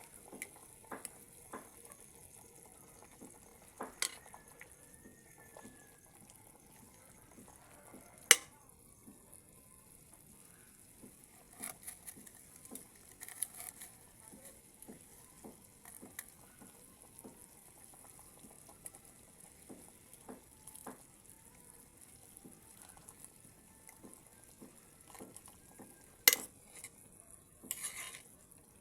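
Food sizzling in a pan while it is stirred, with scattered knocks of a metal utensil against the pan. Two sharp, louder clanks come about eight seconds in and near the end.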